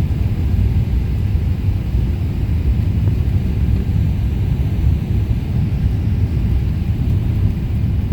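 Steady low rumble of a jet airliner heard from inside the cabin: engine and airflow noise during the approach and landing.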